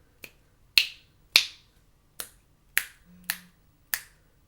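Finger snaps, about seven sharp ones roughly half a second to a second apart, made to the left and right of an Audio-Technica AT2020USB+ condenser microphone from about three feet away, each with a short room echo.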